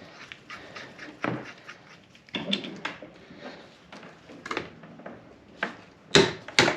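Hand tools and metal parts clinking, scraping and knocking during reassembly of a rear differential, with two loud sharp knocks near the end.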